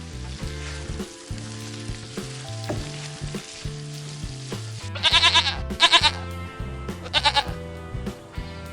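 A goat bleats three times in the second half, each bleat short and wavering and the loudest sound here. Under it, food sizzles in a small frying pan, with steady background music.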